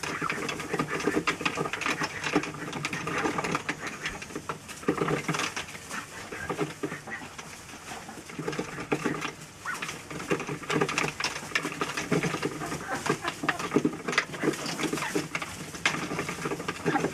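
Ducks dabbling and drinking at a plastic poultry waterer, a rapid, uneven clatter of bills in water and against the plastic.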